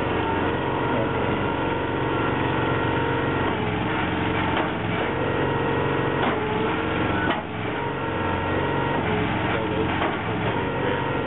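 BigFoot BF300 plastics baler running: its engine and hydraulics hum steadily, with a few sharp clanks partway through as the baling parts move.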